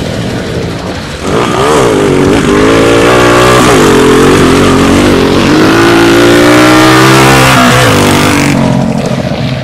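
Small-capacity cubcross race motorcycle engine revving hard, its pitch climbing and falling several times; it grows louder about a second in and fades near the end.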